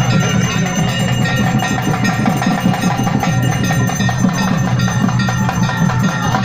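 Naiyandi melam folk band playing loudly: dense, fast drumming under steady held tones.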